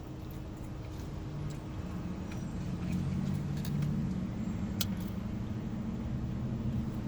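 Low, steady rumble of a motor vehicle running, swelling a couple of seconds in and then holding, with a few sharp clicks over it.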